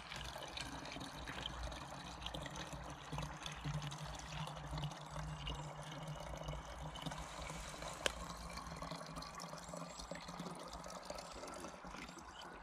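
Filtered water poured in a thin, steady stream from a camping cook pot into a plastic bottle, trickling as it fills, with a faint rising note near the end. A single sharp tick sounds about eight seconds in.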